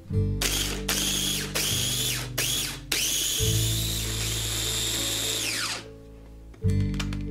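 Food processor grinding raw potato chunks: four short pulses of the motor, each winding down, then a continuous run of about three seconds with a steady whine before it spins down, the potato turning to a wet purée.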